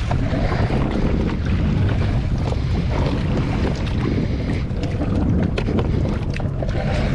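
Steady wind buffeting the microphone, with a constant low rumble over open water and small knocks and rubs from a rope being handled and tied off on a boat's bow.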